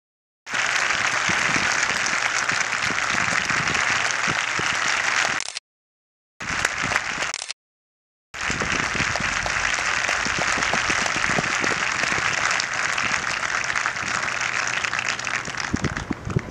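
Audience applauding, a dense steady clapping. The sound cuts out to dead silence three times for under a second each, once at the very start and twice around the middle.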